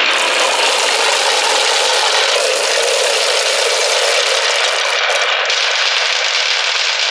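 Dense, steady clattering rattle of many marbles rolling and knocking together along a marble run track.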